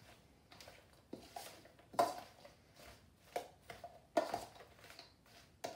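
Sliced cucumbers being tossed by hand with salt in a stainless steel mixing bowl, giving scattered soft knocks and clinks against the metal.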